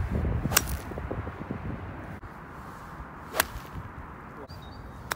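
Two golf shots struck off fairway turf, each a single sharp crack of club on ball, the first about half a second in and the second about three and a half seconds in. Wind rumbles on the microphone underneath.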